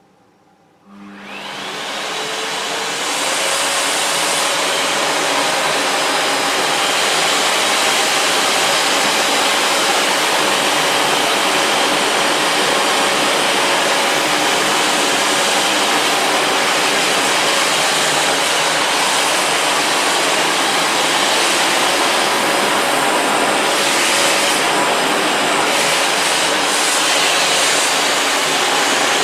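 Sebo Felix upright vacuum cleaner switched on about a second in, its motor whining up to speed over a couple of seconds, then running steadily as its combination floor nozzle sucks up coffee grounds from a hard floor.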